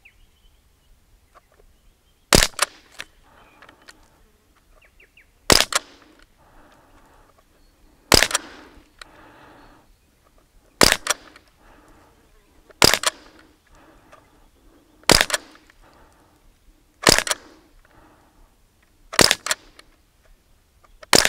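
Umarex Ruger 10/22 .177 CO2 air rifle firing pellets in semi-auto: about nine sharp shots, one every two to three seconds.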